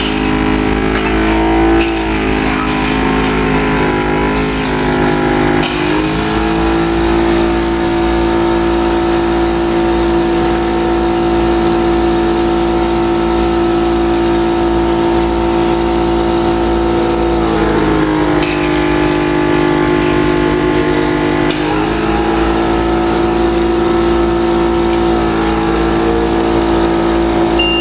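Motor of a home respiratory-therapy machine running steadily, its pitch shifting up or down a few times.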